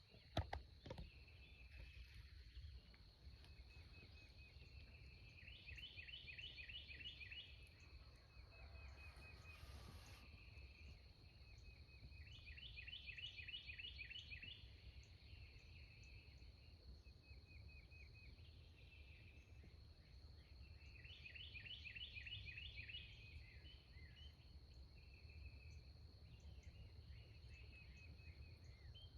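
Faint morning birdsong: a songbird repeats a quick, bright trilled phrase every several seconds, with softer chirps between, over a steady high-pitched tone and a low rumble. A single sharp knock sounds about half a second in.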